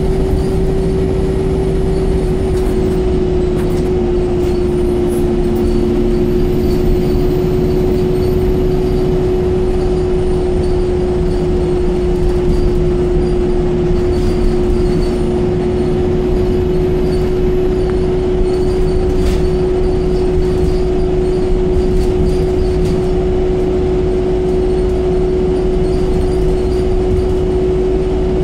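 Alexander Dennis Enviro200 MMC single-deck bus driving along, heard from inside the passenger saloon: a steady rumble of engine and road noise with a constant whine held at one pitch.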